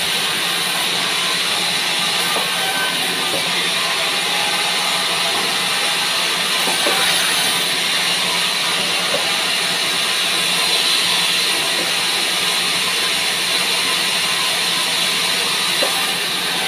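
Large sawmill band saw running and ripping a pine slab: a steady, high-pitched cutting hiss over a low motor hum.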